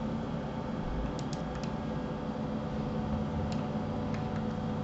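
A few faint computer keyboard clicks, four in quick succession about a second in and a couple more later, over a steady electrical hum and room noise.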